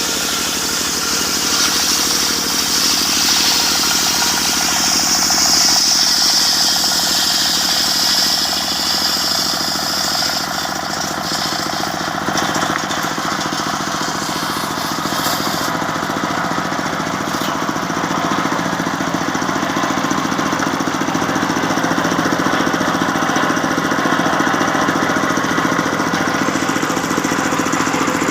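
Circular sawmill running steadily while sawing a long medang log, with a steady engine drone underneath. A high whine over roughly the first ten seconds then fades.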